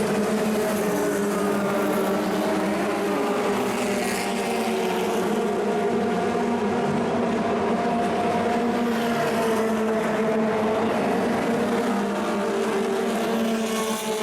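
Engines of 1960s cigar-shaped Formula 2 and Formula 3 racing cars running, with several engine notes overlapping and their pitch rising and falling in places.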